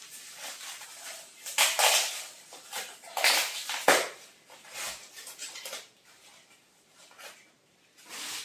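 Plastic packaging crinkling and rustling in bursts as a small cosmetics item is unwrapped by hand, with a sharp click just before four seconds in. The handling turns quieter after about six seconds.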